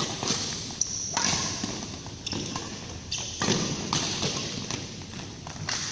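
Badminton rally: the shuttlecock is struck sharply by rackets several times, about half a second to a second apart, with players' footsteps on the court and a brief high squeak about a second in.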